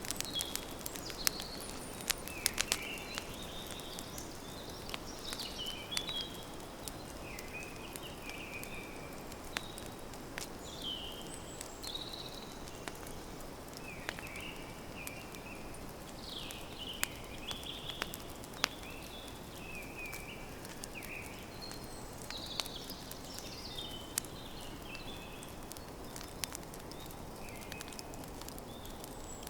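Campfire crackling with sharp pops, thickest in the first several seconds and sparser after, while a songbird sings short, repeated chirping phrases over it.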